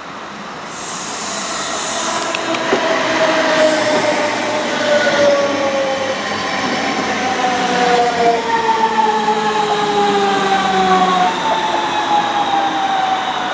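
DB Class 425 electric multiple unit running past and slowing for the station. Its traction motors whine in several tones that fall steadily in pitch as it brakes, over rail and running noise, with short hissing in the first few seconds.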